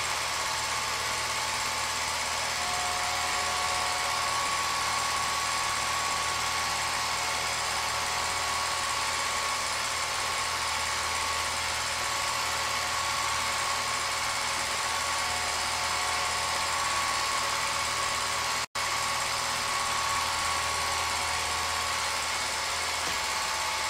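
Film projector running: a steady mechanical whirr with a low hum, unchanging throughout, cutting out for an instant near the end.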